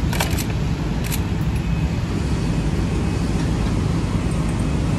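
Steady street traffic noise, a low rumble of passing vehicles, with two brief clicks near the start.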